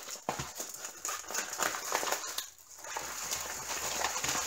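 A rolled diamond painting canvas being turned and unrolled by hand: rustling and crinkling with many small scrapes and clicks, easing off briefly midway.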